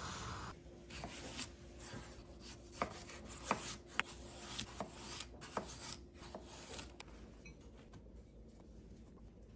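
Water boiling in a stainless steel pot, cut off abruptly half a second in. Then a kitchen knife slices a cucumber on a wooden cutting board: a dozen or so sharp, irregular knocks of the blade through the cucumber onto the wood, then quieter handling near the end.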